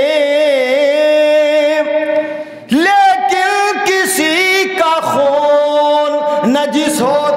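A man's voice reciting Urdu verses in a sung, melodic style, with long held notes that waver in pitch and a short break for breath about two and a half seconds in.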